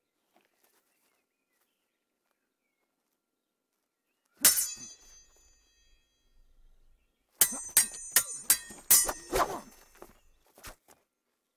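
Steel sword blades clashing: one ringing clang about four and a half seconds in, then a quick run of about six ringing clashes a few seconds later.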